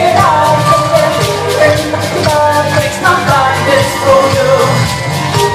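Pop-style music: a singing voice over a steady beat.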